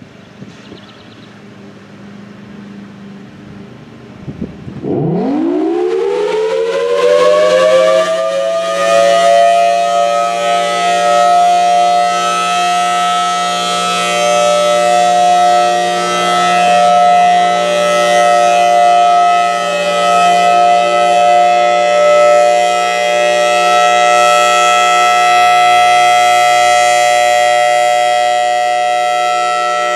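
Federal Signal Thunderbolt 1003 outdoor warning siren sounding its Alert signal. A low hum builds first. About five seconds in, the siren winds up, its pitch sweeping up fast and settling within a few seconds into a loud, steady chord of several tones. The chord holds, swelling and fading slightly in level as the siren rotates.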